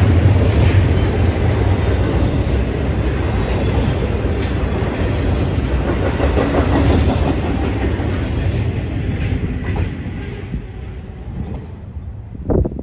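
Norfolk Southern freight train rolling past on the rails, its noise fading steadily as it moves off. A brief sharp sound comes just before the end.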